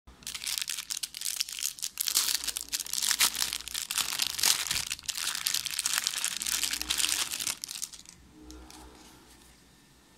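Clear plastic sticker bag and the stack of vinyl sticker flakes inside it crinkling and rustling as hands squeeze and handle them, in quick irregular crackles, until the handling stops near the end.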